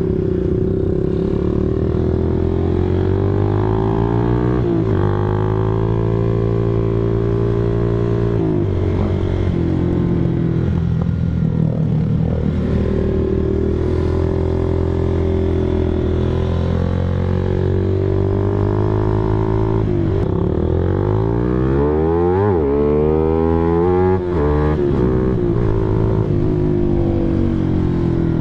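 Honda Sonic 150R's single-cylinder engine running under way, its pitch rising and falling with the throttle through the gears. About three quarters through, a long rise in revs breaks off suddenly at a shift.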